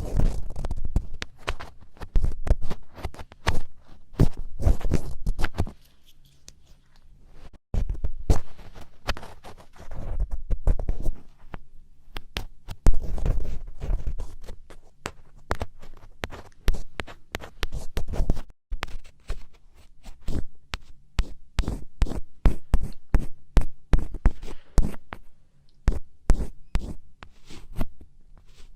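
An ear pick scratching and scraping firmly close to the microphone in quick, rapid strokes. The strokes run in bursts, with a quieter pause about six seconds in and a short break near eighteen seconds.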